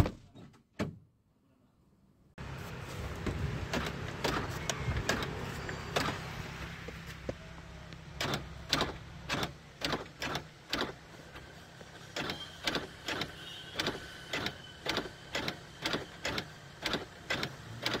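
Sharp mechanical clicks inside a car, over a low steady hum. A loud single click comes first and a second one just after. From about eight seconds in, the clicks come evenly at about two a second.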